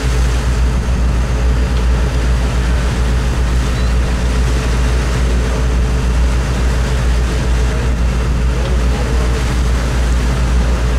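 Sportfishing boat's engine running steadily underway: a low, even drone with the rush of the wake and wind over it.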